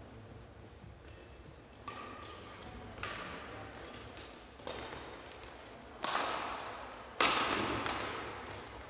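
Badminton rally: five racket strikes on a shuttlecock, about one every second or so, each briefly echoing in the hall. The last two hits are the loudest.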